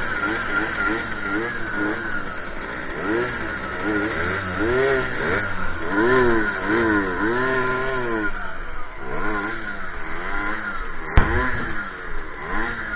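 Several small two-stroke moped engines revving up and dropping back, their pitches rising and falling over one another. A single sharp crack about eleven seconds in.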